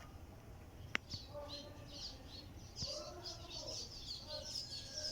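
Small birds chirping rapidly and repeatedly, with a single sharp click about a second in.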